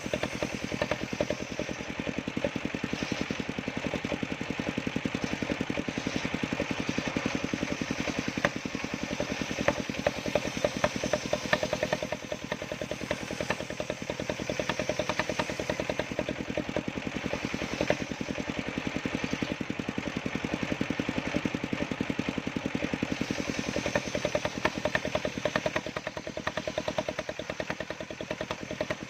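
Small engine of a home-built sawmill running steadily at an even speed, with a rapid regular firing pulse.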